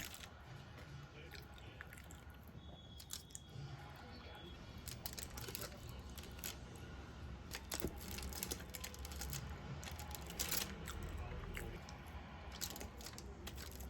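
Close-up chewing and biting of crunchy food, with irregular sharp crunches.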